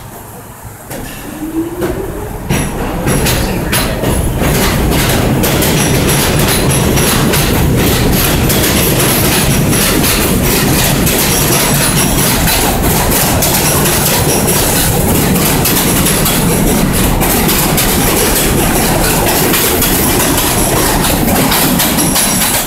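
New York City subway train running on an elevated steel structure, its wheels clattering over the rail joints, loud and steady from about two seconds in. A short rising motor whine sounds about a second in.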